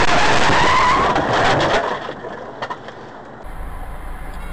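A car skidding out of control, with a wavering tyre squeal over loud road noise, for about two seconds. After that the sound drops to a quieter, steady rumble from inside a car.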